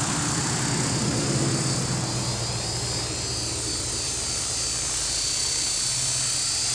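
Electric RC helicopter flying and then hovering low over the ground: a steady rotor whir with a constant high-pitched motor whine. The low whir dips briefly about halfway through, then returns.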